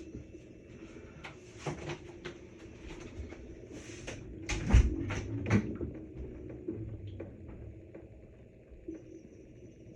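Samsung washing machine humming steadily as it fills, with scattered clicks and knocks and a heavier thump about halfway through.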